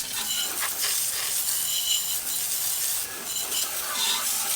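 Degreaser being sprayed onto a lawn mower's dirty carburettor: a steady hiss that swells and dips slightly.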